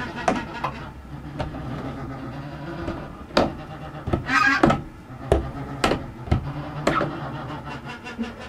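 Knocks and clothing rustle from a hand-held camera being handled and turned close to the microphone: about half a dozen sharp knocks through the middle, with a brief rustle among them, over a steady low drone.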